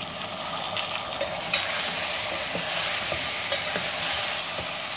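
Diced tomatoes, potato and bottle gourd pieces sizzling in hot spiced oil in a pressure cooker while a metal spoon stirs them, with light scrapes and taps of the spoon against the pot. The sizzle grows louder about a second and a half in.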